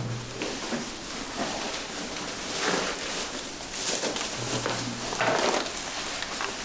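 Thin plastic supermarket bags rustling and crinkling as they are handled and set down, in a string of irregular crackly bursts.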